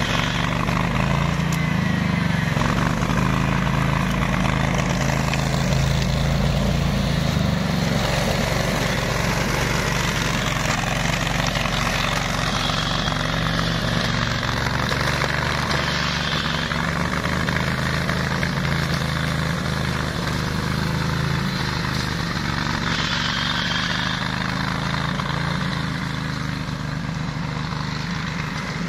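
Ride-on flail mower's 18 hp engine running steadily, getting a little quieter toward the end.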